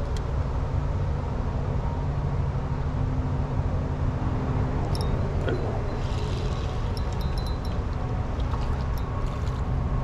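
Steady low rumble of interstate highway traffic. In the second half there are a few light clicks and a faint whir as the spinning reel is worked.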